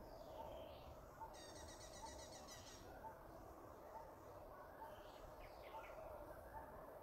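Faint birdsong: a short low note repeated steadily a little more than once a second, with a rapid high trill about a second and a half in and a few brief chirps.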